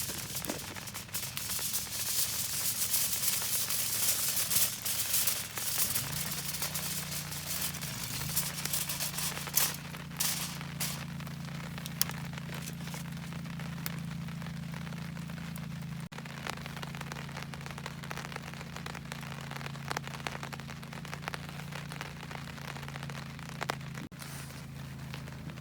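Crackling and rustling noise with scattered clicks. About six seconds in, a low steady motor hum starts and keeps going.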